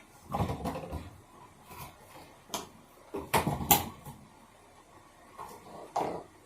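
Knocks, bumps and scrapes of a small electric water heater being handled and set into place in a cabinet, in several separate clusters with the loudest just past the middle.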